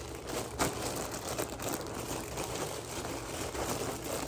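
Packaging crinkling and rustling as it is pulled open by hand, without scissors, with a sharper crackle about half a second in.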